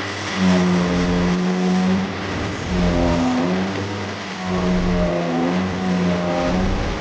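A small electric power-tool motor running at a steady high whine in several spells of one to two seconds, dipping or cutting between them, over a low rumble and a hiss.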